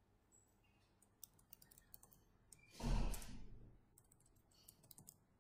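Faint computer keyboard typing in short runs of key clicks, with one louder breath out close to the microphone about three seconds in.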